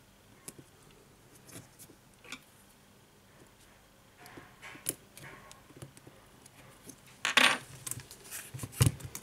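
Light clicks and clinks of a tablet's metal display frame and small plastic parts being handled while the volume button is fitted into the frame. It is faint for the first few seconds, with a louder clatter about seven seconds in and a sharp knock near the end.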